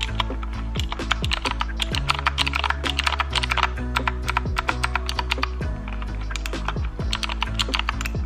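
Rapid typing on a Royal Kludge RK61 mechanical keyboard, its blue switches clicking, over background music.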